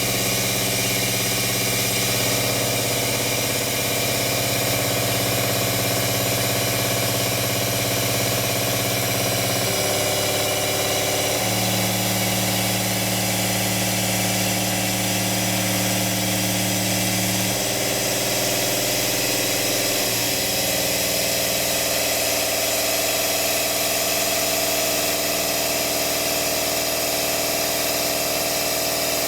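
Lagun CNC milling machine running while machining an aluminium part: a steady mechanical hum of several tones over a high hiss. The tones change pitch abruptly a few times, about ten, twelve, eighteen and twenty seconds in, as the machine's speed changes.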